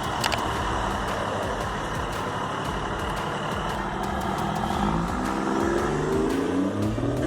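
An engine running, then revving up, its pitch rising over the last two or three seconds.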